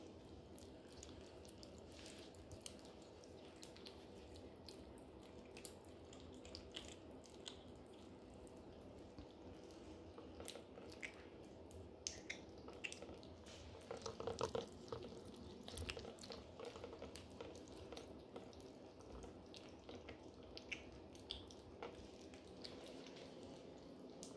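Maine Coon kittens eating wet cat food from a shared dish: faint wet chewing and smacking clicks over a low steady hum, with a brief louder burst about halfway through.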